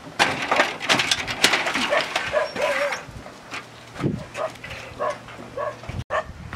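Corrugated galvanized metal roofing sheets clattering and scraping as they are lifted and handled, loudest in the first three seconds. After that comes a quick run of short, high animal calls, about three a second.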